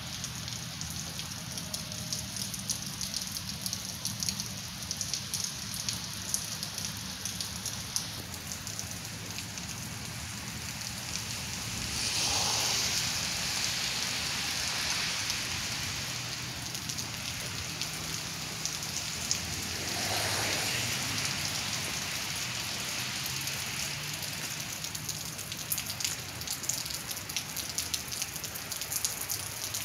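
Wet snow falling with a steady fine pattering. Two swells of louder rushing noise come about twelve seconds in and again about twenty seconds in.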